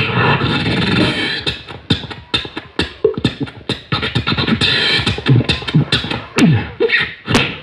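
One person making sound effects with the mouth and voice, beatbox-style: a rapid run of sharp clicks and pops mixed with short voiced sweeps that glide up and down in pitch.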